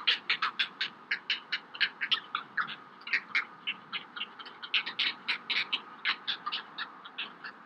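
Great blue heron chicks begging, a fast steady chatter of short, sharp calls, about five or six a second.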